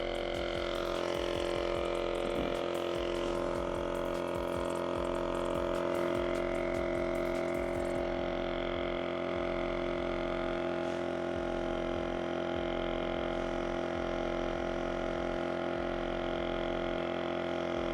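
Lasfit Air CR1 battery-powered portable tire inflator running steadily, its small compressor pumping air into a car tire partway through inflating it toward its 33 psi auto-stop.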